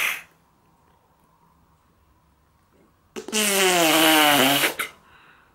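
Air blown through a plastic drinking straw into a lump of purple slime, sputtering out through it. One loud blow about three seconds in lasts about a second and a half, its pitch sinking slightly, and the tail of an earlier one ends at the very start. The slime is failing to hold a bubble.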